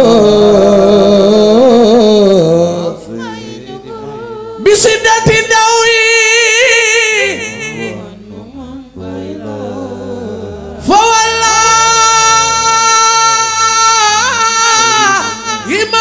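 A man sings a Wolof devotional praise song into a microphone in long, held notes that waver in pitch. The singing drops back twice and comes in loud again about five and eleven seconds in.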